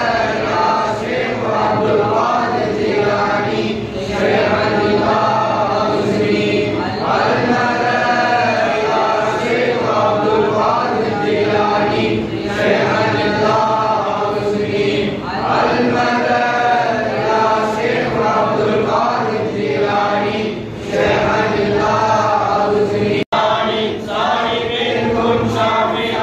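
A group of men chanting rathib dhikr together, a continuous, rhythmic recitation repeated in phrases. The sound drops out for an instant near the end.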